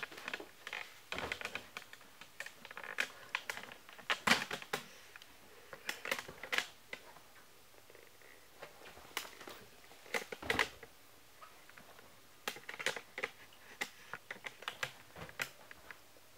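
Irregular light clicks, taps and rustles as a baby monkey scrambles about on a sofa, with a quieter stretch in the middle.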